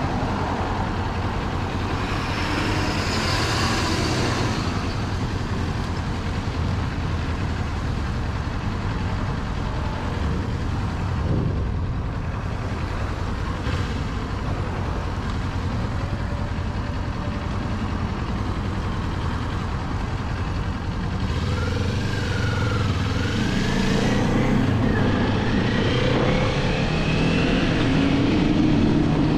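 Kawasaki 400 naked motorcycle under way: steady engine running with wind and road noise. In the last several seconds the engine note wavers up and down and gets a little louder.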